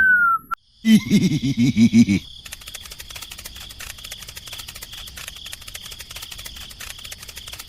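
A brief loud wavering sound about a second in, then crickets chirring steadily with fast ticking for the rest of the time.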